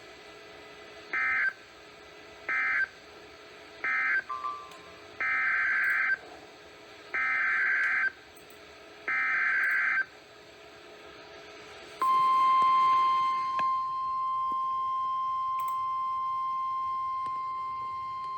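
NOAA Weather Radio EAS signalling from station WXK91. First come three short screeching SAME data bursts, the end-of-message code. Then three longer SAME header bursts of about a second each, a second apart. About twelve seconds in, the steady, piercing weather radio warning alarm tone begins, marking a new warning alert.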